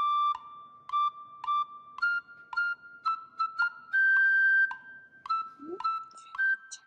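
Background music: a light, whistle- or flute-like melody of short, clear notes, with one longer held note about four seconds in.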